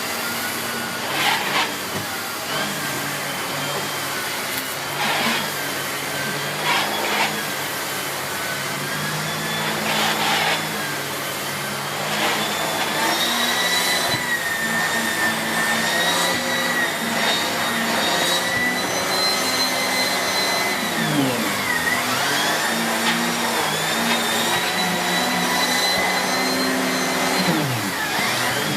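Miele S8 canister vacuum cleaner running during vacuuming: a steady motor whine that gets louder about halfway in and dips briefly in pitch twice in the second half. A few short knocks come in the first half.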